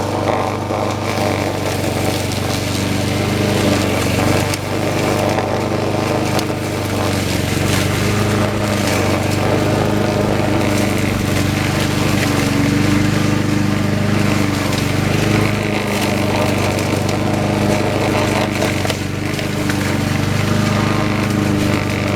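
Troy-Bilt 21-inch walk-behind lawn mower engine running steadily under load while cutting tall grass, with brief small dips in level about four and a half seconds in and near the end.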